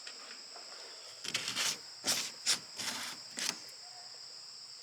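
Steady high-pitched chirring, most likely insects, with several short scuffing noises in the middle.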